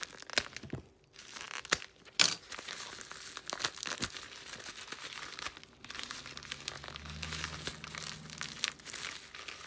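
Package packaging being handled and torn open by hand: continuous crinkling and tearing with several sharp crackles.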